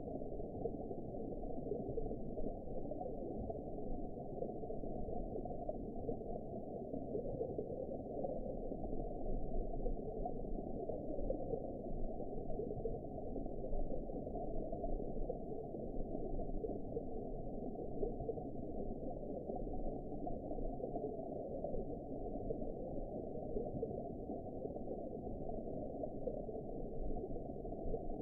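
Underwater ambience for sleep: a steady, muffled low rushing noise with nothing high-pitched in it, rising and falling only slightly.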